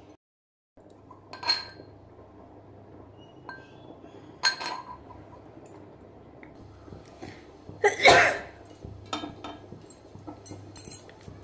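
Steel pestle striking inside a small steel mortar while pounding spices: a few sharp metallic clinks about three seconds apart, the loudest a little past the middle, with lighter clinks after it, over a low steady hum.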